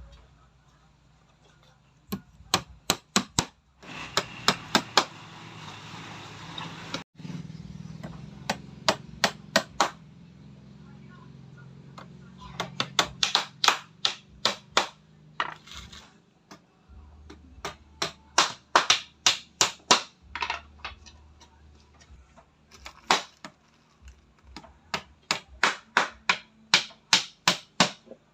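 Hammer blows in quick runs of several sharp strikes at about three to four a second, with short pauses between the runs.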